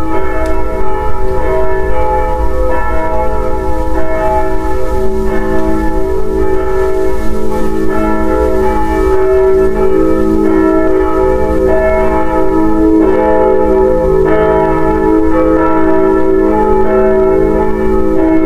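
Many bells ringing together in a continuous peal, their tones overlapping and sustained, over a low rumble.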